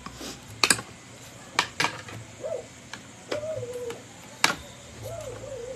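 Cutlery clinking against a plate during a meal: a handful of sharp clinks. In the second half there is also a soft, wavering whine.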